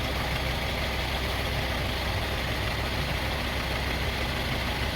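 Car engine idling steadily, a continuous low hum.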